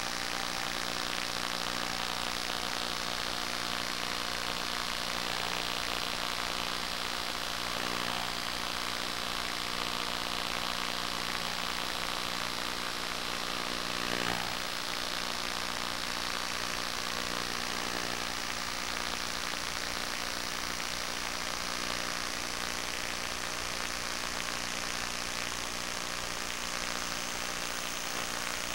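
Electric motor and propeller of a radio-controlled plane running steadily in flight, a constant drone of several steady tones under a hiss.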